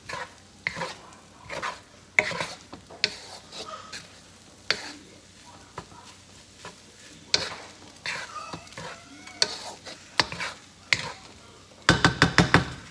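Wooden spoon scraping and tossing fried rice around a hot non-stick wok, with sizzling oil, in irregular strokes. Near the end comes a quick run of about eight sharp knocks in about a second.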